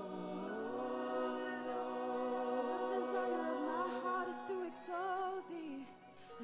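Worship music: sustained, held chords with singing voices, one voice wavering in vibrato around the middle. The sound dips briefly near the end and swells back in.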